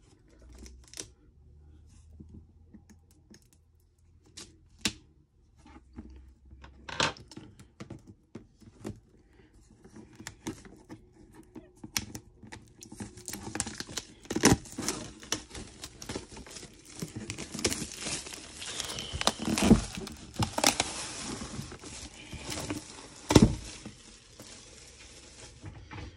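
Plastic wrapping being picked at and then peeled and torn off a cardboard trading-card collection box. Scattered clicks and taps come first; from about halfway there is continuous crinkling, with several sharp snaps.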